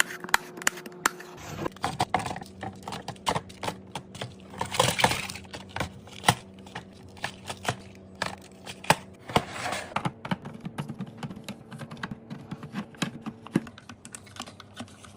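Quick clicks, taps and clatters of food containers, jars and lids being handled and set down while restocking a fridge, with a longer rustle about five seconds in and another near ten seconds.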